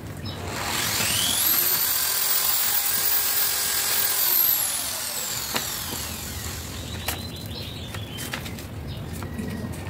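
An electric power tool's motor spins up with a rising whine, runs steadily for a few seconds, then winds down as it is switched off; a few light clicks and knocks follow near the end.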